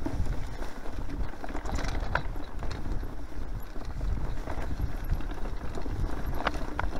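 Mountain bike rattling and thudding irregularly over bumpy grass singletrack at speed, over a steady low rumble of wind and tyre noise, with a few short sharp clicks about two seconds in and near the end.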